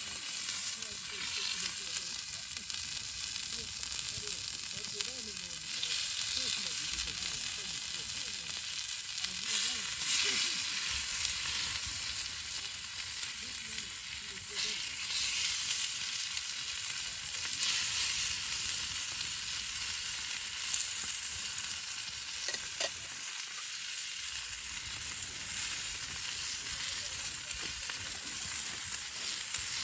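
Food sizzling in a hot frying pan, a steady hiss with small pops and crackles throughout.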